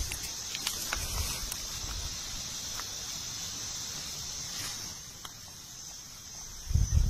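Steady, high-pitched drone of forest insects, with soft footsteps rustling in dry leaf litter and a few low thumps near the end.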